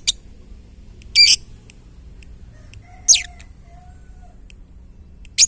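Caged lovebird giving three short shrill calls: one about a second in, a quick downward-sweeping call about three seconds in, and another at the end. A faint steady high whine runs underneath.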